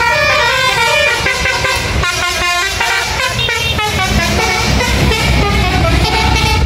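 Bus's multi-tone 'basuri' horn playing a tune of stepping notes, over the low rumble of the bus engine and traffic, which grows louder about four seconds in as the bus passes close.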